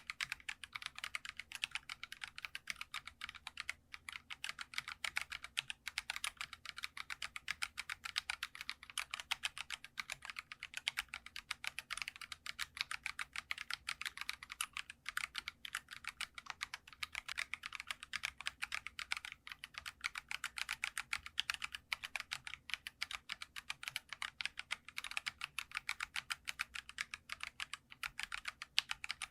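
Fast, continuous typing on a Geekstar mechanical keyboard: a dense stream of light, crisp keystroke clacks at several per second, without pause.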